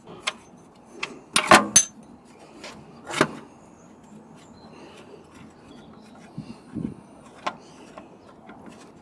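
Hand tools clinking and knocking against metal parts during mechanical work: a cluster of sharp knocks about one and a half seconds in, another about three seconds in, then scattered lighter clicks.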